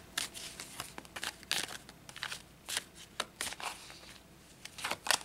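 Tarot cards being shuffled and handled: a run of irregular quick flicks and soft slaps of card on card.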